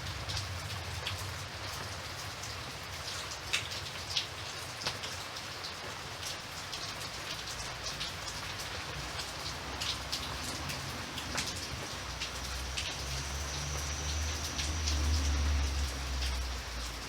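Steady rain falling, with many individual drops ticking sharply against a surface. A low rumble swells near the end.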